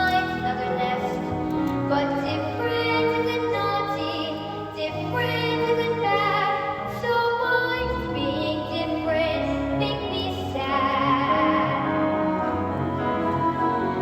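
Music: a female voice singing a melody over instrumental accompaniment, with some long held notes sung with vibrato.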